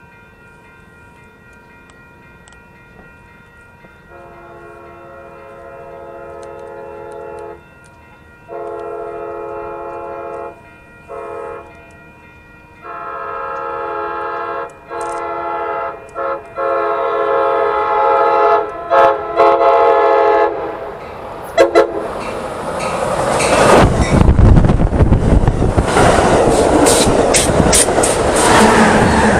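Amtrak Pacific Surfliner train, led by a cab car, sounding its multi-note horn in a long, long, short, long pattern, the standard grade-crossing signal, getting louder as it approaches. Then the train passes close by with a loud rumble and clickety-clack of wheels over the rail joints.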